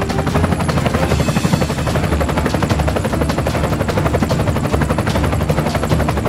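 Helicopter sound effect: a fast, steady chopping of rotor blades.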